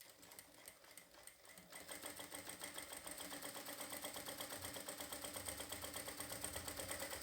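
Jack F4 industrial lockstitch sewing machine stitching fabric. It starts with light handling sounds, then about two seconds in runs up to a steady, fast rhythm of needle strokes.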